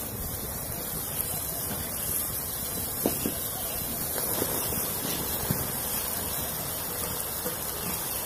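Chopped sponge gourd (nenua) tipped from a plate into an iron kadai of simmering wet masala and chana dal: a steady hiss from the pan with a few faint knocks as the pieces drop in.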